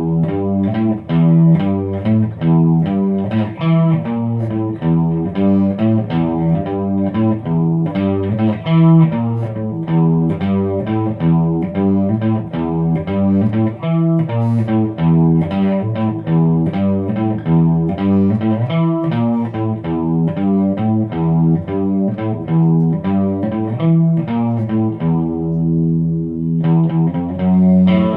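Electric guitar played through a Line 6 POD Pro amp modeler, a busy run of picked notes and chords in an amp-modelled tone. Near the end a chord is let ring for a couple of seconds before the playing picks up again.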